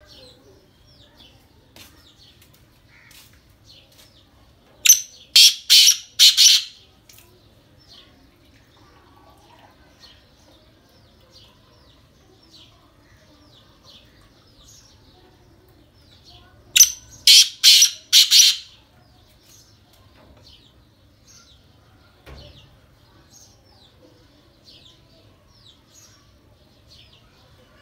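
Male black francolin calling twice, about twelve seconds apart. Each call is a sharp opening note followed by a run of four loud, harsh notes.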